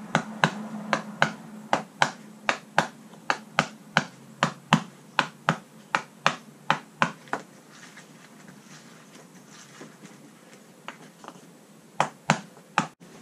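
Quick, sharp clicks, about three a second, as old traction-mat glue and foam is worked off a jet ski's gel-coat deck by hand. They stop about seven seconds in, and three more come near the end.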